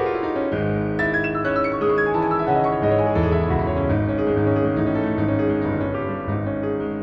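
Piano music: full chords over a bass line that comes in about half a second in, easing off in loudness near the end.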